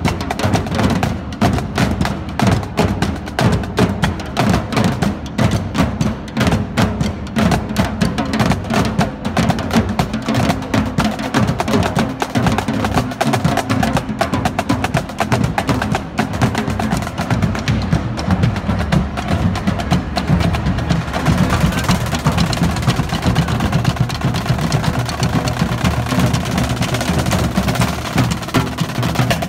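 A drumline of marching snare drums and other drums played with sticks, beating out a fast, dense rhythm. About two-thirds of the way through, a steady hissing wash joins the drumming.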